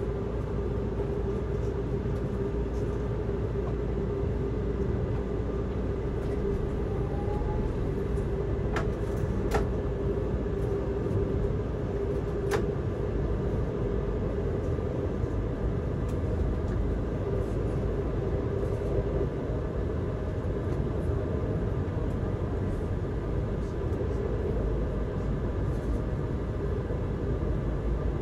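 Utsunomiya Light Rail tram running on its track, a steady rumble of wheels on rail and traction motors with a steady hum that drops away about two-thirds of the way through. A few sharp clicks come around nine and twelve seconds in.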